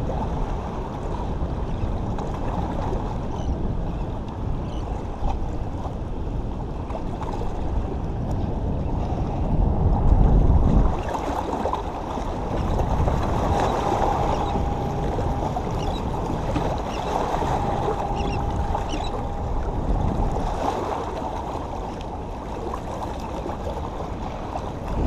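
Waves washing against the rocks of a jetty, with wind buffeting the microphone in a steady rush and a louder low rumble about ten seconds in.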